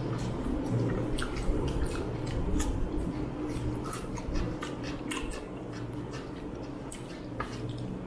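Two people chewing food by mouth, with wet smacking and many small, sharp mouth clicks.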